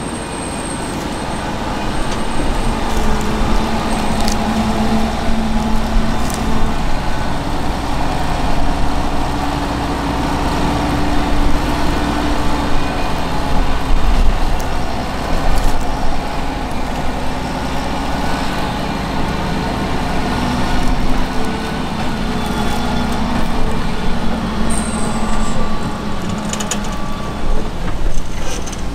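Fendt 724 Vario tractor's six-cylinder diesel running steadily under load as it pulls a Grimme SE 150-60 potato harvester, with the harvester's running gear adding a clattering machinery noise and a few sharp clicks. It grows louder over the first couple of seconds.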